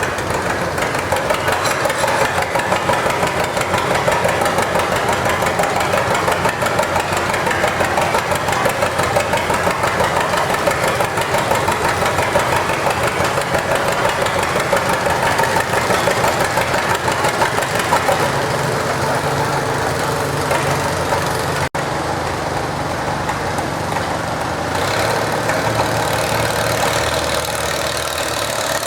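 Farm tractor engine running hard under load as it pulls a deadweight sled, with a fast, rough pulse. About eighteen seconds in it settles to a lower, steadier running.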